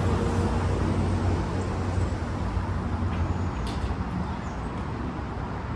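A steady low hum over an even rushing background noise, easing slightly in the second half, with a few faint clicks.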